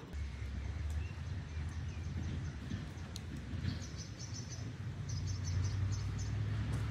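Steady low rumble throughout, with a small bird chirping in quick runs of short high notes during the second half.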